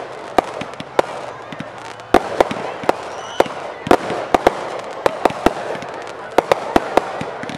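Aerial fireworks bursting in a quick, uneven string of sharp bangs, about two or three a second.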